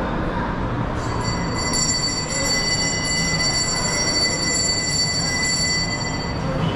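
Brass temple bell rung continuously for about five seconds, a steady cluster of high ringing tones that starts suddenly and stops short, over the low murmur of the temple hall.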